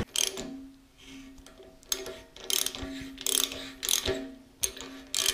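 Ratchet clicking in short, uneven strokes as it turns a thread tap through a 3/4-inch bolt hole in a tractor's rear end case, tapping new threads.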